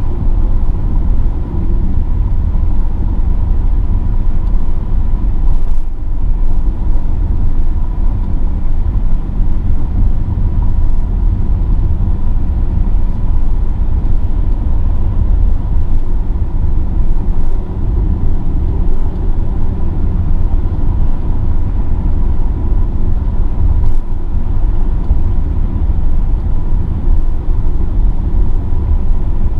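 Mercedes-AMG GLE 43 SUV driving at a steady pace: a steady deep rumble of engine and road noise, with no revving.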